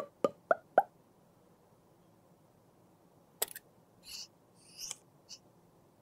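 Four quick light taps in a row, then a click, two short scraping swishes and a last small click as small objects are handled.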